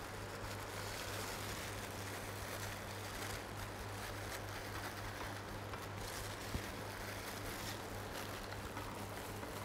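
Steady room background: a constant low hum with a faint hiss, and one faint click about six and a half seconds in.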